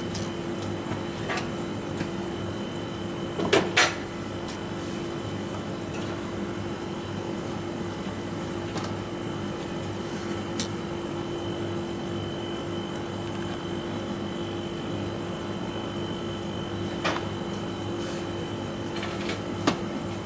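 Steady hum of kitchen machinery with a constant low tone, broken by two sharp knocks about three and a half seconds in and a couple of lighter clicks near the end.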